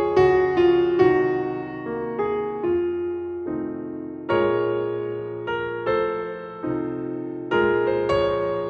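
Solo piano playing a slow piece, each chord or note struck and left to fade before the next.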